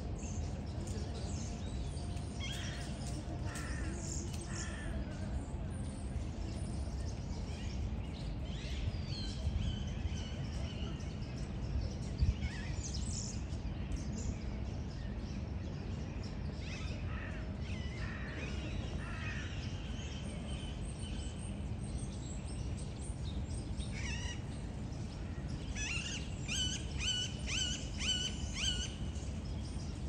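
A flock of mynas calling: scattered harsh chattering calls and a few drawn-out whistled notes, with a quick run of repeated calls near the end, over a steady low rumble.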